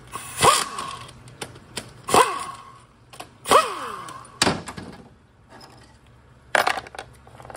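Cordless power driver spinning out bracket bolts on a Toyota AB60E transmission's valve body in three short bursts, each dying away with a falling whine as the motor spins down. A sharp click follows, then a short metallic clatter near the end.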